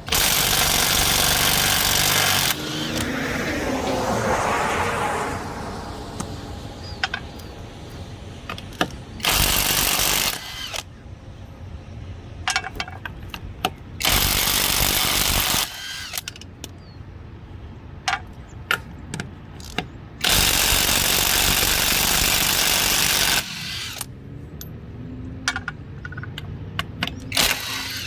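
Impact wrench running in four bursts of one to three seconds, spinning off 21 mm wheel lug nuts. Sharp metallic clinks of sockets and nuts come between the bursts.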